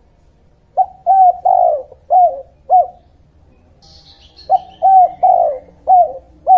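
A dove cooing in two phrases of five short notes each, the phrases about a second and a half apart. Faint high chirps of a small bird come just before the second phrase.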